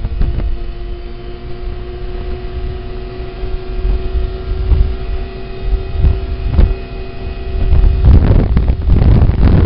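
Snowmobile engine running at a steady, slowly rising note while riding, with heavy wind buffeting on the microphone and occasional knocks; the wind rumble grows louder near the end.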